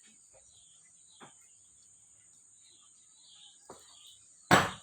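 Quiet background with a steady high-pitched whine, a couple of faint clicks, then a sudden loud burst of noise near the end.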